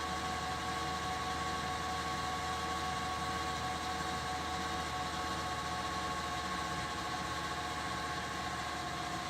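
1952 Singer 201-2 sewing machine's gear-driven potted motor running at a steady speed, an even hum with several steady tones.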